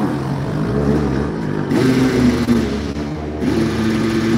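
Motocross sidecar outfit's engine revving hard on the track. Its pitch climbs and then holds twice, about a second and a half in and again near three and a half seconds.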